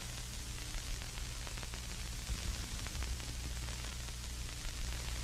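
Steady static hiss with a low hum underneath and a few faint crackles, like the worn soundtrack of old film.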